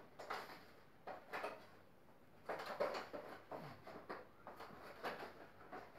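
Cloth cleaning cover being pulled and tucked around a wall-mounted air conditioner's indoor unit: irregular rustles and soft knocks against the plastic casing.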